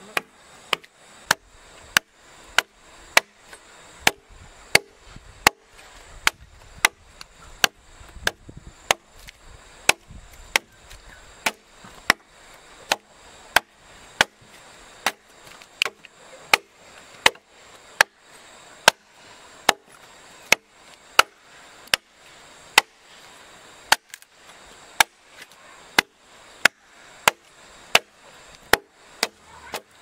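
Machete chopping a notch into a felled log: a steady run of sharp blade strikes into the wood, about two a second.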